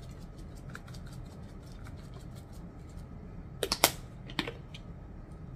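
Grated parmesan shaken from a plastic shaker: a run of light ticks, then a few sharp plastic clicks about three and a half seconds in as the shaker's flip-top cap is worked open.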